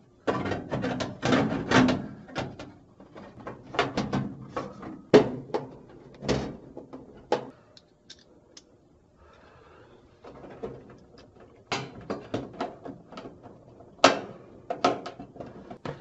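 Clicks, knocks and rattles of hands fitting a dryer's control-panel backing plate into place, with a quiet pause about halfway through.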